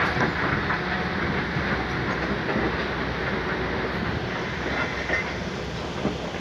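Steady mechanical rumble and rattle, with a few short clanks scattered through it.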